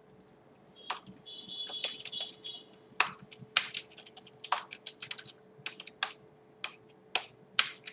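Typing on a computer keyboard: irregular keystrokes starting about a second in, some struck harder than others, over a faint steady hum.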